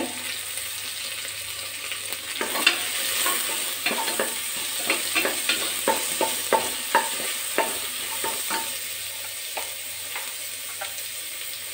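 Sliced onions, green chillies and whole spices sizzling in hot oil in an aluminium pressure cooker. A wooden spatula stirs them, knocking and scraping against the pot from a couple of seconds in, easing off a few seconds before the end.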